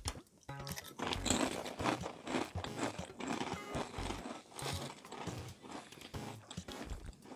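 Chewing and crunching of thin, crispy baked cheese crackers (Cheez-It Snap'd): an irregular run of crisp crunches.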